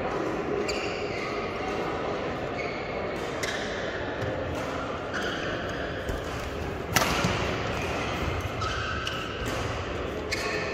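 Badminton rally: several sharp racket strikes on the shuttlecock a few seconds apart, the loudest about seven seconds in, echoing in a large sports hall.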